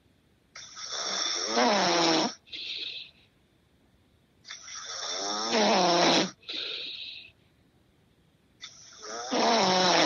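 A sleeping man snoring: three long snores about four seconds apart, each with a rough pitched drone, the first two followed by a short, softer breath out.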